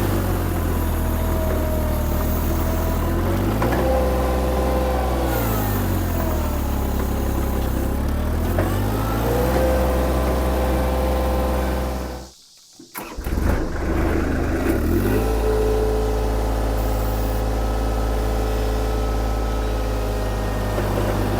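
VMENG 580T Pro mini skid steer's engine running, its pitch sagging and recovering several times as the hydraulics load it. This is the bog test of its new 20cc (12 GPM) gear pump, which makes the machine less boggy than the 25cc pump did. The sound cuts out for a moment a little past halfway.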